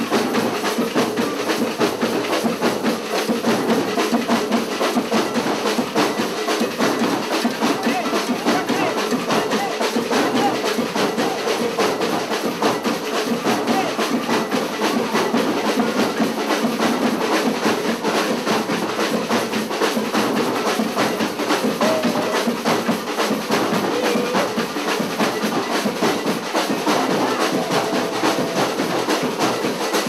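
Carnival percussion band drumming a dense, steady beat, with crowd voices mixed in.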